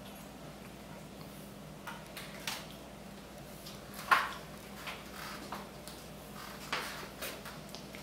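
Room tone with a steady low hum, broken by a handful of light, short taps and knocks; the loudest comes about four seconds in.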